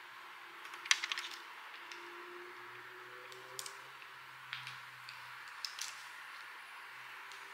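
Faint steady room hiss with a few light clicks and rustles: a quick cluster about a second in, then single soft clicks spread through the middle.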